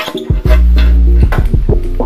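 Background music with deep bass and a steady beat of drum hits; a long low bass note is held for under a second in the middle.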